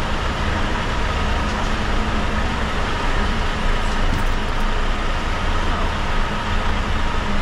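Steady low rumble of heavy lorry diesel engines running inside a ferry's enclosed vehicle deck.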